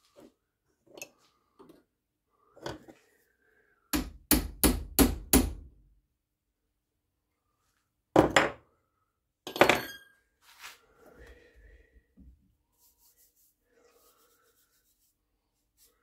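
Five quick hammer taps on metal, about three a second, then two louder single knocks a second and a half apart, followed by faint clinks and handling noises.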